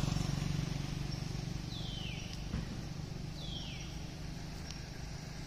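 A bird calls twice, each call a high whistle falling in pitch, about a second and a half apart. A single light click comes between them, over the fading low hum of a vehicle that has just passed.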